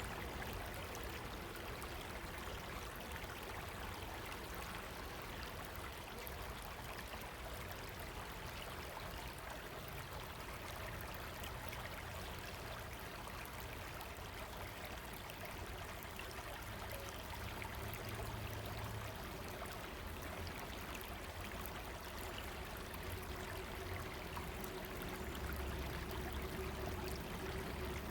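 A river running: steady rushing and babbling of flowing water, with a low rumble that grows slightly near the end.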